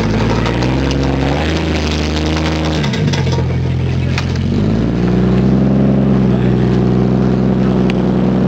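Jeep Cherokee XJ engine revving up and down under load as it crawls over rock, three rises and falls, then climbing to higher, steady revs about five seconds in.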